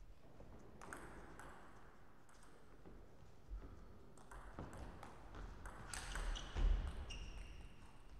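Scattered sharp taps of table tennis balls bouncing, with a louder cluster of clicks and short ringing pings about six to seven seconds in, the loudest a low thump.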